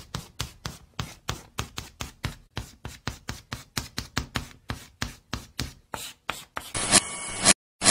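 Logo-animation sound effect: a fast, even run of sharp clicks, about four or five a second, as the title letters appear one by one. Near the end it gives way to a short, scratchy hiss.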